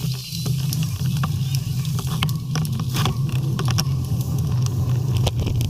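Steady low rumble of wind and road noise on a camera riding along on a road bike, with scattered small clicks and knocks.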